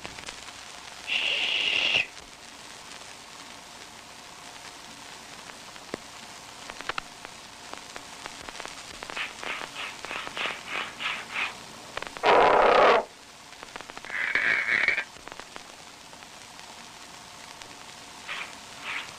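Worn early optical cartoon soundtrack, with steady hiss and crackle under sparse sound effects: a short high squeal just after the start, a quick run of clicks, a loud crash about halfway through, then another short squeal. There is no dialogue.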